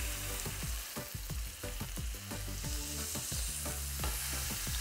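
Marinated chicken breasts sizzling in oil on a hot ridged grill pan, a steady frying hiss.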